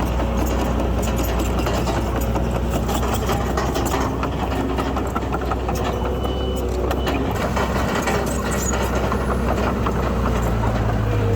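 Heavy diesel engine of a Komatsu D31PX crawler bulldozer running steadily under work, with scattered metallic clanks and clicks. Its low engine note steps up and gets louder near the end.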